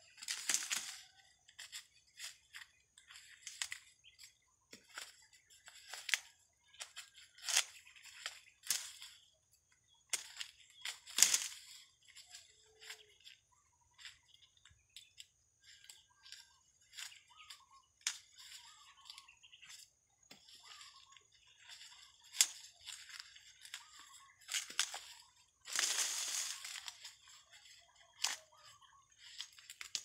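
Dry corn husks and leaves crackling and tearing as ears of dried corn are husked by hand and broken off the stalks, in irregular bursts with longer, louder rustles about a second in, about 11 seconds in and about 26 seconds in.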